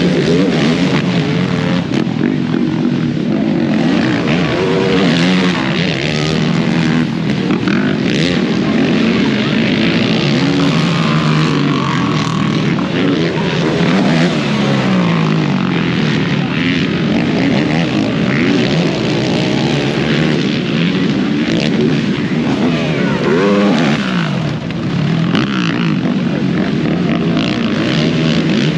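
Several racing ATV engines revving hard, their pitch rising and falling over one another as the quads race around a motocross track.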